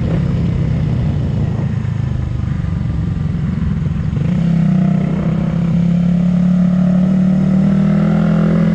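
Suzuki Raider 150 Fi's single-cylinder four-stroke engine running while under way. It gets louder about four seconds in, then holds steady.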